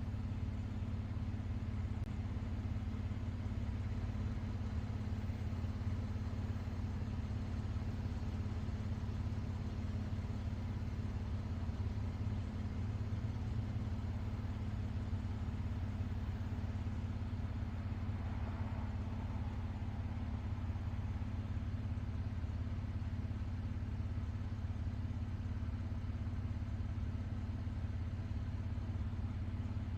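Steady low rumble, even in level throughout, of the kind an idling engine or nearby traffic makes; no clear birdsong stands out above it.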